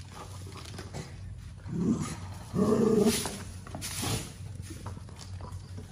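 A dog growling and snarling at a snake it is attacking, in short outbursts; the loudest and longest comes about two and a half seconds in.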